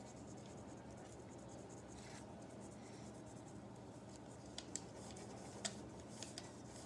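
Faint scratching of a wax crayon colouring on paper, under a low steady hum.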